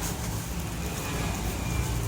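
Steady low background rumble with a hiss over it, like vehicle or traffic noise.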